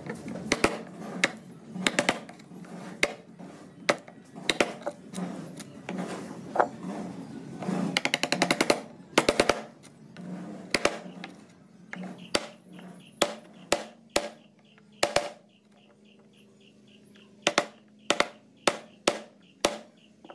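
Wooden mallet striking a carving chisel as it cuts into a wooden panel: sharp, irregular knocks, with a quick run of taps about eight seconds in and sparser, single strikes in the second half.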